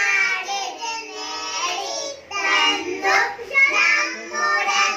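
A group of young children singing a song together into a microphone.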